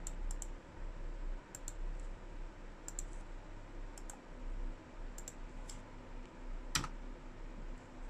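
Scattered clicks of a computer keyboard, a few keystrokes at a time and often in quick pairs, with one louder click near the end.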